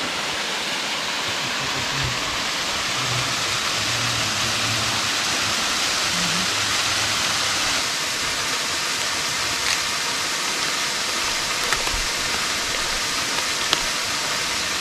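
Waterfall: a steady, even rush of falling water, with a few faint clicks in the second half.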